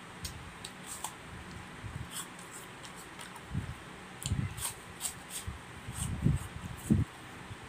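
Fruit being chewed: crisp crunches and wet mouth clicks, with a few louder, heavier bites in the second half.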